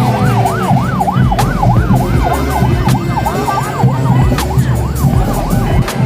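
Siren in fast yelp mode, rising and falling about three to four times a second, stopping about five seconds in. It sounds over drums and band music with a heavy beat.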